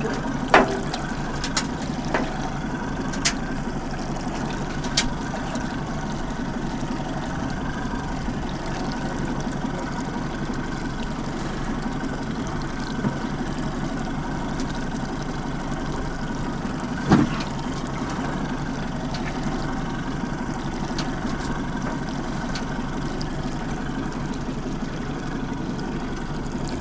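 A small fishing boat's motor running steadily, with water washing against the hull. A few short knocks come through, the loudest about 17 seconds in.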